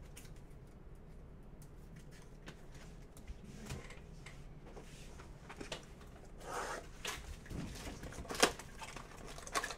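Faint room tone, then, from about six seconds in, rustling and several sharp clicks as a cardboard box of trading cards is handled and worked open.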